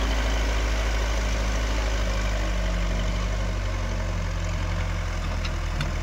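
Backhoe loader's diesel engine running steadily at low revs as the machine drives away, growing slightly fainter.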